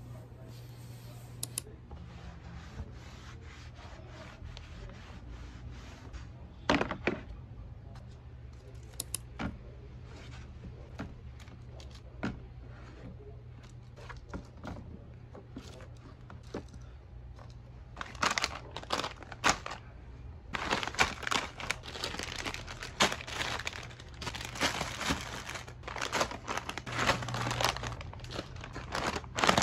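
Plastic snack packets crinkling as they are handled and packed into a plastic storage tray, in dense rustling bursts through the last third. Before that there are only scattered light knocks and clicks of objects being set down, over a low steady hum.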